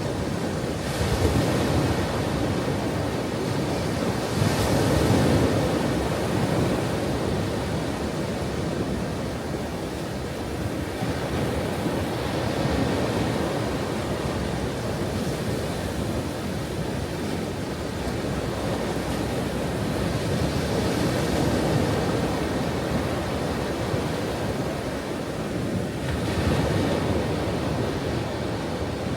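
Ocean waves breaking on a shore: a continuous wash of surf that swells as each wave breaks, about every few seconds.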